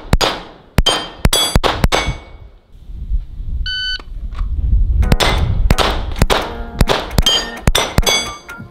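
A pistol fires quick strings of shots at steel plate targets, which ring with a metallic clang on each hit. About four seconds in, an electronic shot timer gives a short beep to start the next string, followed by another fast run of shots and ringing steel.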